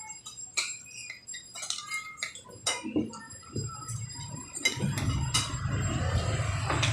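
Forks clinking and scraping on plates, with occasional clinks of glass bottles, as several people eat at a table. From about halfway a steady low rumble comes in underneath.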